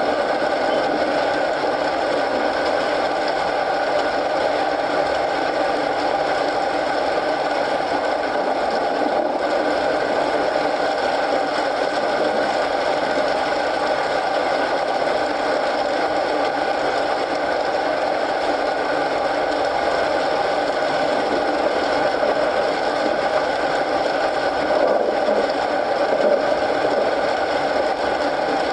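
Steady rain mixed with a wood fire burning in a fireplace, an even, unchanging hiss.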